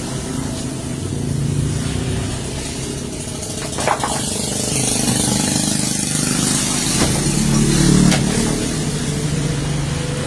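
An engine running steadily, its low pitch drifting up and down, with a few sharp clicks or knocks about four, seven and eight seconds in.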